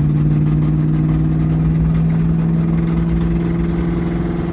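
Ford Mustang SN95's 4.6-litre two-valve V8 running under way, its steady hum edging up in pitch about halfway through. The engine has a rod knock, the fault the driver is pointing out.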